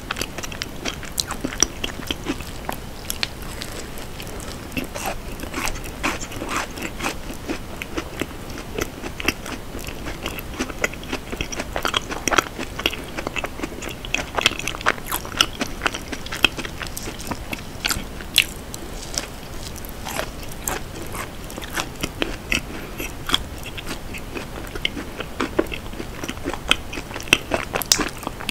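Close-miked eating: biting and chewing a dense piece of brownie, with many small sharp crunchy clicks.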